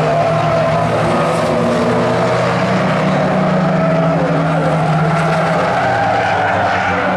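Engines of several old saloon and hatchback race cars running at speed together as they lap a tarmac oval, their pitches rising and falling as the cars take the bend.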